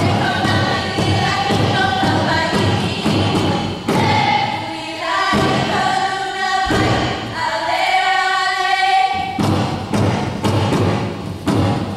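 Hula kahiko chant: a chanting voice holding long pitched notes over a steady thumping drum beat. The beat drops out twice in the middle while the chant carries on.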